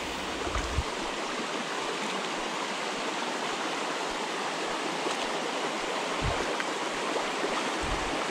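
Shallow stream running over stones, a steady rushing babble of water, with a few brief low bumps.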